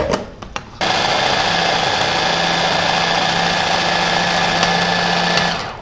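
Electric hand blender on a chopper-bowl attachment switched on about a second in, running steadily at one speed as it purées spinach with vegetable oil into a green paste, then winding down just before the end. A few light clicks come before it starts.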